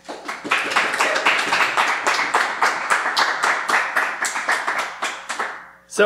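Audience applauding: dense clapping that thins out and stops just before the end.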